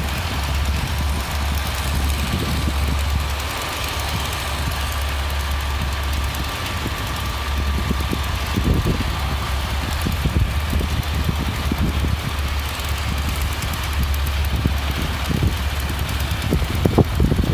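A heavy engine idling steadily with a low hum, with scattered knocks and thumps over the second half.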